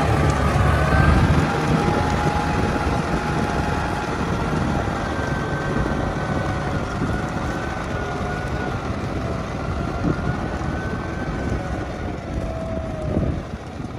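Kubota M6040 SU tractor's diesel engine running under load while its rear rotary tiller churns wet paddy mud. The sound is rough and noisy, with a wavering tone from the engine and driveline, and a heavy low rumble that eases off about a second and a half in.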